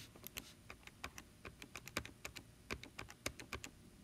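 A run of quick, irregular key taps, about five a second, like someone typing or punching in a calculation.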